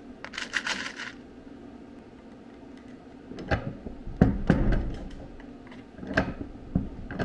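Hand-lever arbor press setting eyelets in a Kydex sheath. Small parts click and rustle about a second in. Around four seconds in comes the loudest part, a heavy knock and crunch as the ram is pulled down and the eyelet is set, followed by a few sharp clicks of metal as the lever is worked again.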